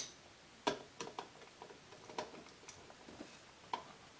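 Scattered light clicks and taps of hands handling a sheet-metal project box and working a wire onto an emergency stop switch mounted in it, the sharpest click right at the start.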